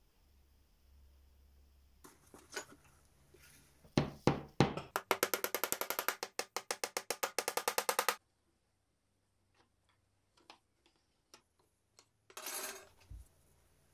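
Small hammer tapping a small nail into thin pine slats: a few heavy blows, then a fast even run of light taps, about seven a second, for some three seconds. Afterwards a few light wooden clicks of slats being handled and a short scrape.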